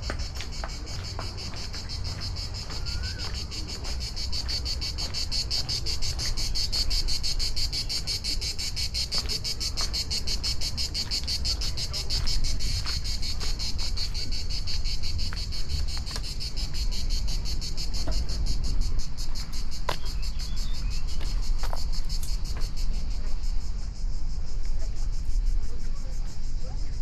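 Steady chorus of insects: a high, rapid pulsing buzz that carries on without a break.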